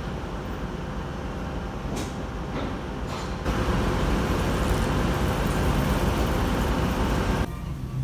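Street traffic noise, a steady hiss and rumble of vehicles. It gets abruptly louder about three and a half seconds in and drops away just as suddenly near the end.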